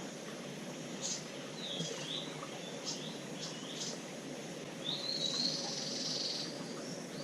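Jungle ambience: wild birds giving short high chirps and whistled calls, with a buzzing insect trill about five seconds in, over a steady faint hum.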